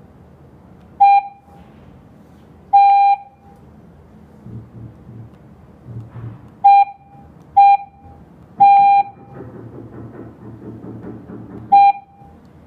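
KERUI G90B alarm panel giving six electronic beeps at one steady pitch, four short and two longer, spaced unevenly, while a door sensor is being paired to it.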